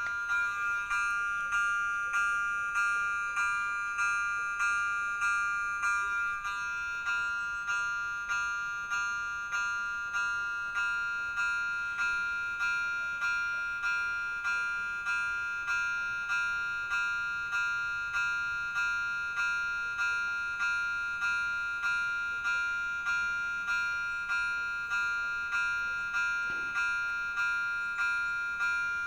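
Electronic warning bell of a pedestrian railway level crossing ringing steadily, a little under two strikes a second, each ringing tone dying away before the next. It sounds while the red 'Atención' pedestrian signal is lit, warning that a train is approaching and the crossing must not be used.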